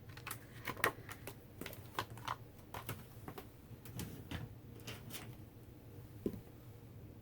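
Irregular light clicks and taps from handling stamping supplies on a craft table, several a second for about five seconds, then a single tap near the end.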